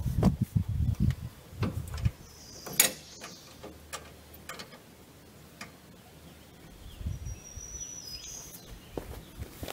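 Scattered metal clicks and knocks from hardware being handled and fitted on a compact tractor's mower lift linkage, with a low rumble in the first two seconds. Birds chirp briefly near the end.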